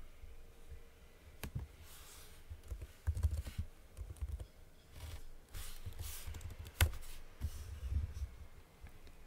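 Typing on a computer keyboard in short bursts of keystrokes, with a few sharper single clicks, one of them louder than the rest about two-thirds of the way through.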